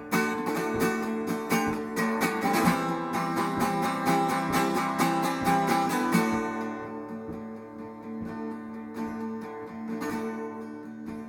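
Instrumental break of a song: guitar chords strummed in a steady rhythm, with the sound thinning and getting quieter after about six seconds.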